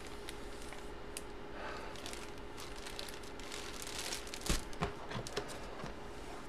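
Faint rustling and crinkling of a card and its packaging being handled, with a few sharper clicks a little past halfway, over a faint steady hum.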